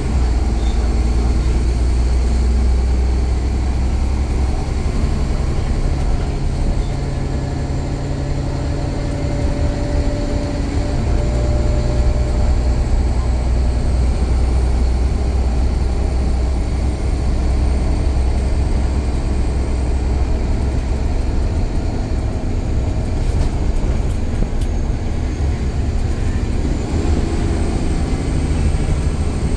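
Alexander Dennis Enviro500 double-decker bus running: a steady low engine drone that eases off and picks up again a few times as the bus drives.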